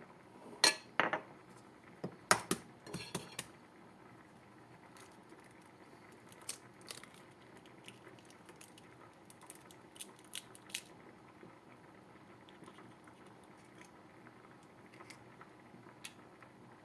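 Kitchen dishes and utensils clinking and knocking: a handful of sharp knocks in the first few seconds, then scattered lighter taps.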